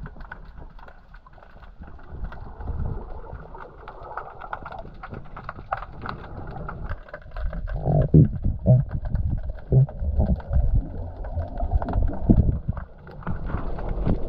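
Muffled underwater sound of water swirling and bubbling, with many small clicks and knocks. It grows louder and heavier, with low thuds, from about halfway through.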